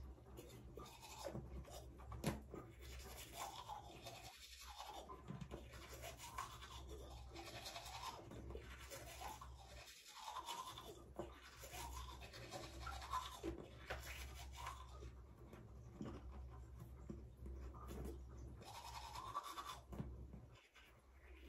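Teeth being brushed with a toothbrush: faint, irregular scrubbing strokes that keep going.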